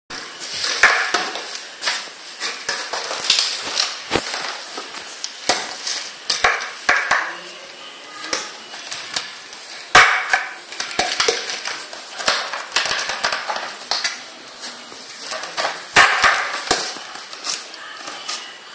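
A plastic water bottle crackling and crinkling as a cat grabs, bites and kicks at it, with irregular knocks of the bottle against a tiled floor.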